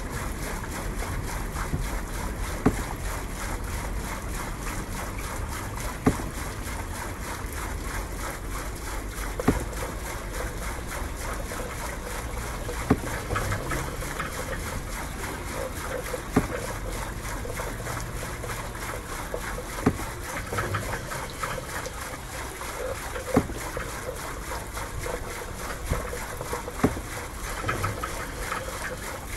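Steady outdoor wash of water and wind around a nativity scene on a boat, with a sharp knock repeating about every three and a half seconds.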